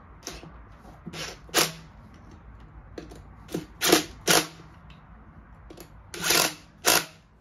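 A socket tool on an extension working the wheel nuts on a quad's front wheel hub: short, sharp bursts in three pairs, each pair about half a second apart, with a few fainter knocks between.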